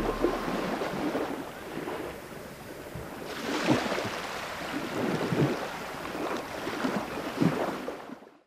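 Shallow sea water lapping and sloshing at the shore with soft irregular splashes, fading out near the end.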